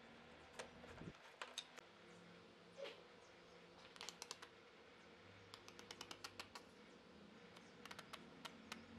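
Faint, quick clicks and ticks in short clusters as white wood glue is squeezed from a plastic squeeze bottle onto wood strips, over a faint steady room hum.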